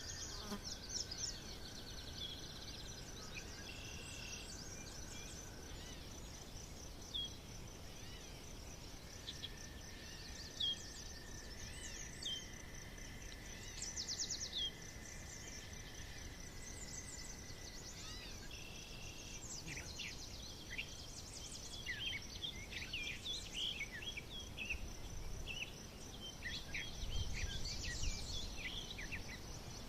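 Forest birds singing: long held whistled notes early on, then many short chirps and trills that grow busier in the second half. Behind them runs a steady high insect drone.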